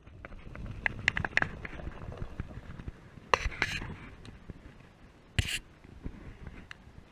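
Clicking and scratchy rustling from a spinning reel being cranked and the angler's handling close to the chest-mounted camera as a crappie is reeled in, with a short splashy burst about three seconds in as the fish is swung out of the water and another brief burst a couple of seconds later.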